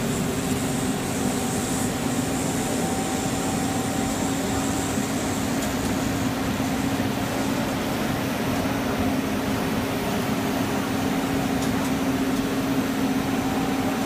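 Machinery of a rubber hose extrusion line running: a steady mechanical hum with a constant low tone.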